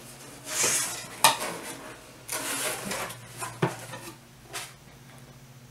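A cardboard subscription box being opened by hand: a few scraping, rustling pulls at the flaps and contents, with a couple of sharp knocks in between.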